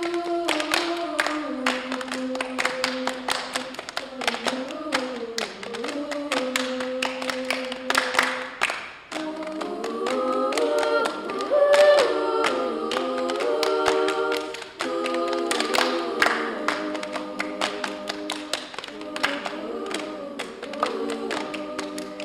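A girls' choir singing a cappella, keeping time with their hands in a steady run of claps, the voices opening into fuller several-part harmony about nine seconds in.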